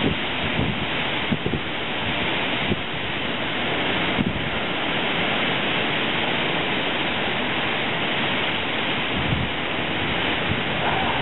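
Heavy rain and strong wind of a post-tropical storm: a steady dense hiss with irregular low gusts buffeting the microphone.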